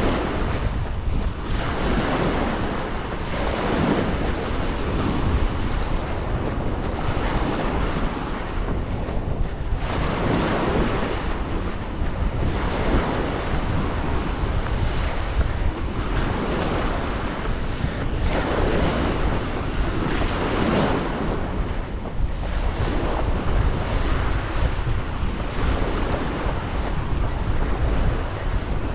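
Small waves breaking and washing up onto a sandy beach, swelling and falling every two to three seconds, with a steady rumble of wind on the microphone.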